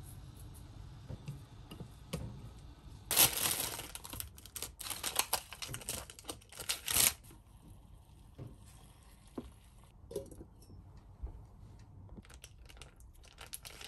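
Plastic packaging crinkling and tearing for about four seconds, then scattered light clicks and knocks of kitchen food preparation.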